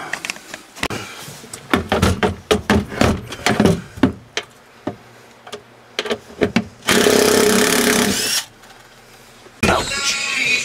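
A string of irregular clicks and knocks from tools working on the 10 mm center-console bolts, then a power tool runs steadily for about a second and a half, and starts again near the end.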